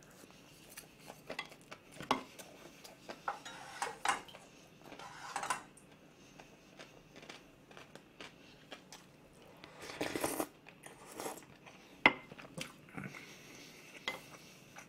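Close-miked eating: a person chewing gimbap, with chopsticks and a metal spoon clicking against a metal tray and a pot. A few louder short clinks and scrapes stand out.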